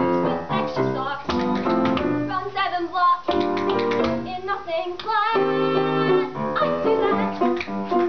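A woman singing with vibrato into a microphone, accompanied by a grand piano.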